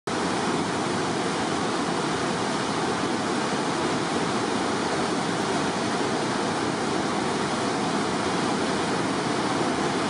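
Fast-flowing river in flood, its water rushing steadily over rapids and standing waves in an even, unbroken noise.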